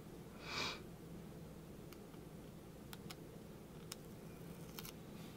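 Quiet handling of a paper die-cut and adhesive foam squares: a short soft rustle about half a second in, then a few faint scattered ticks as small foam squares are picked off their sheet.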